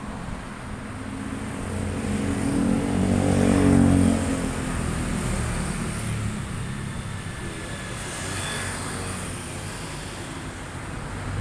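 A motor vehicle's engine passing on the road, swelling to its loudest about four seconds in and then fading away.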